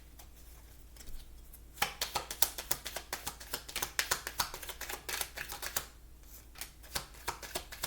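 A deck of oracle cards being shuffled and handled: rapid runs of crisp card clicks and flicks, starting about two seconds in, pausing briefly, then resuming near the end.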